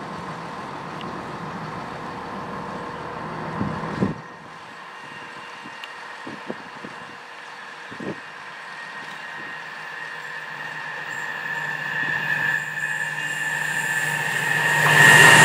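A train approaching along the line, its noise building over the last few seconds into a loud passage with a steady high whine. Earlier there is a lower steady hum that changes abruptly about four seconds in, and a few short knocks.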